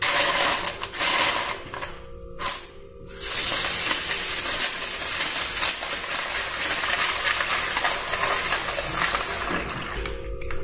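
Plastic keyboard keycaps clattering as a hand stirs them around in a plastic bowl, then, a few seconds in, tap water running hard onto the keycaps in the bowl with a steady splashing hiss that stops near the end.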